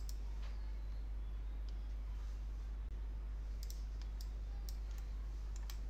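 Computer mouse clicks, a few scattered ones and then more frequent ones in the second half, over a steady low electrical hum.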